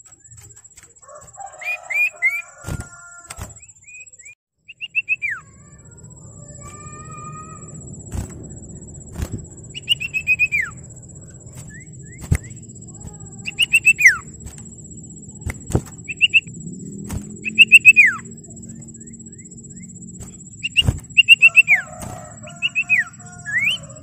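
Common iora singing: short phrases of high whistled notes, several sliding steeply downward, repeated every two or three seconds. Sharp clicks sound between phrases over a low background rumble.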